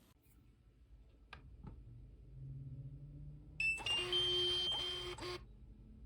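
A short electronic chime of several steady tones lasting about a second and a half, starting with a click a little past halfway, over a faint low hum.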